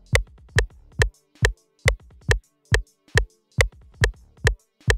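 Electronic kick drum looping, a little over two hits a second, each a sharp click that drops quickly into a low thud. The kick is coming back through an Ensoniq ASR-10 sampler used as an outboard hardware insert, and it returns quieter than the dry kick.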